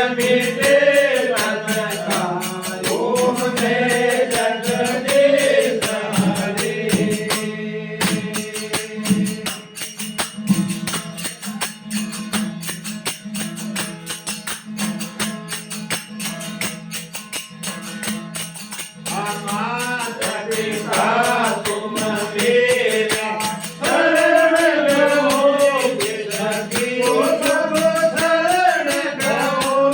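Male voice singing a devotional aarti bhajan over a steady drone from a desi veena, with jingling percussion keeping a fast beat. The singing stops for an instrumental break of about twelve seconds a few seconds in, then resumes.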